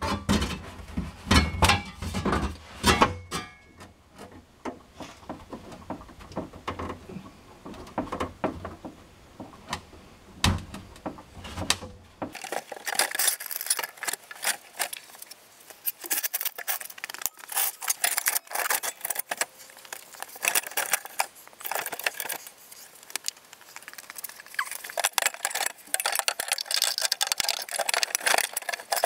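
Irregular clattering, knocking and rattling as a fuel tank is worked up into position under an SUV, with a dull rumbly undertone in the first dozen seconds and lighter, sharper rattles after that.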